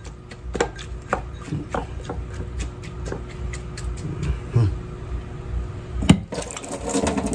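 Hands mixing chopped vegetables in a ceramic bowl on a wooden cutting board: scattered light clicks and knocks as the bowl and fingers tap against it, with one sharper knock about six seconds in.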